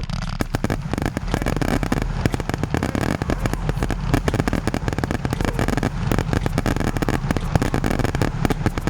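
Consumer fireworks going off in a dense, continuous run of rapid crackling pops and small bangs.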